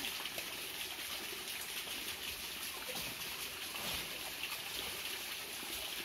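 Shallow forest stream trickling steadily over rocks.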